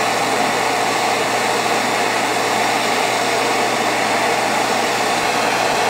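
Handheld propane torch burning with a steady hiss, its flame heating a rifle bolt face to melt silver-solder paste.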